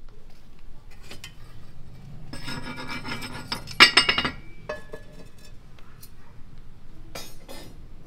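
A frying pan scraped across a metal stovetop with a rasping, ringing metallic scrape for about two seconds, ending in a sharp clank. A few lighter knocks and a short scrape follow near the end.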